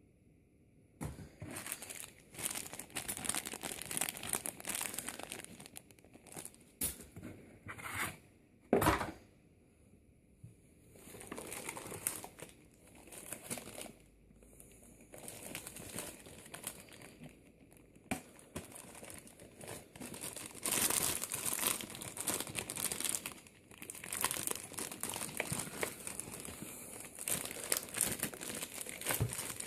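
Packaging crinkling and rustling by hand in irregular bursts with short pauses, as a box is unpacked. A sharper, louder crinkle comes about nine seconds in.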